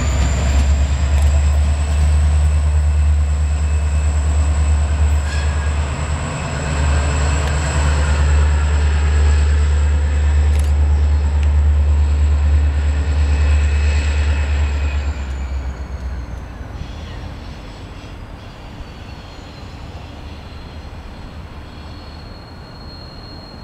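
EMD GP40-2LW diesel locomotive running light and pulling away along the track. Its turbocharged V16 gives a heavy low rumble under a steady high whine. About 15 seconds in the sound fades sharply and the whine falls in pitch as the locomotive draws off into the distance.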